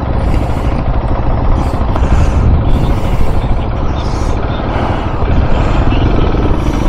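KTM 690 Enduro R's single-cylinder engine running as the bike is ridden off-road, under a loud, unbroken rumble of wind buffeting on the microphone.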